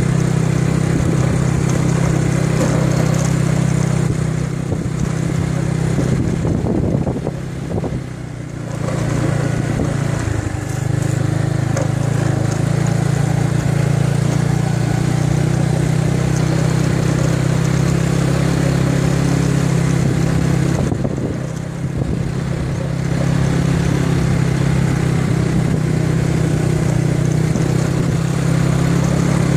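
Small motorcycle engine running steadily while riding, heard from on the bike. The engine sound dips briefly twice, about seven seconds in and about twenty-one seconds in, then picks up again.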